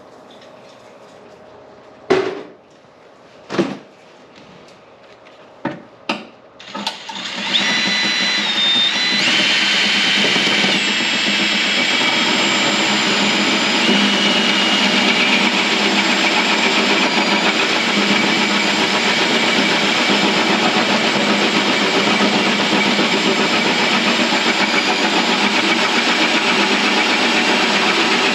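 A few separate knocks. Then, about seven seconds in, an electric drill starts and runs steadily, driving a hole saw through sheet-metal fender. Its whine shifts in pitch for a few seconds as it comes up to speed and bites.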